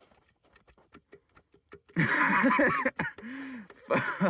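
Faint scattered metal clicks as a socket extension is worked on an engine's number-one connecting rod, then a man's loud laugh-like vocal outburst about two seconds in and a short low hum near the end.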